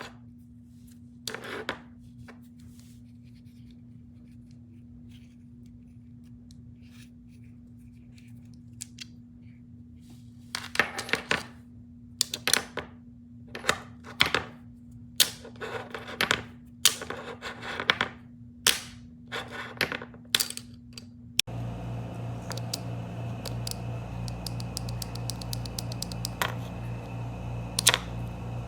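Sharp clicks and clacks in quick, irregular runs: a weapon light being switched and handled on a firearm. Under them is a steady low electrical hum that turns louder and lower about 21 seconds in.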